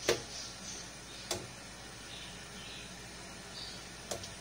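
A spatula knocking three times against the side of a metal wok while stirring a simmering stew: once at the start, once about a second in and once near the end, over a faint steady background of the bubbling pot.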